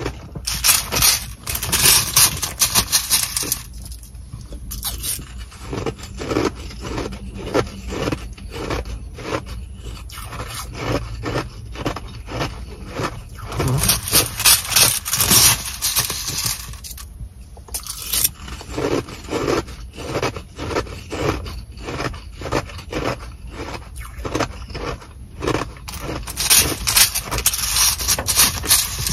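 Plastic fork raking and stabbing into a bag of Sonic nugget ice, the hard little pebbles scraping and clicking against each other and the plastic bag in a quick run of sharp scrapes. There are louder flurries about a second in, around halfway and near the end.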